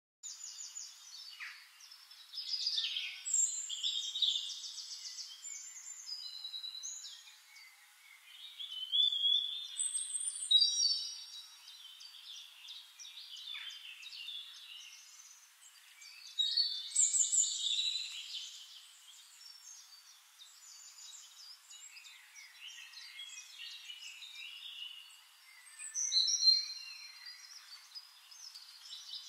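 Small songbirds chirping and singing in repeated bursts of high, quick notes and trills, over a faint steady hiss; the sound is thin, with no low end.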